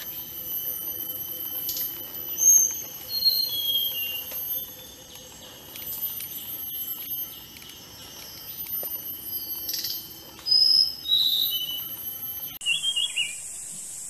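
Small songbird singing: a run of clear whistled notes stepping down in pitch, then a shorter phrase of two high whistles later on. Near the end the sound cuts abruptly to a hissier recording with a quick twittering phrase.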